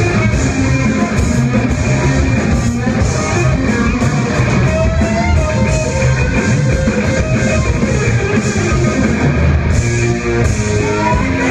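Rock band playing live and loud: electric guitar to the fore over drums and bass, with no singing.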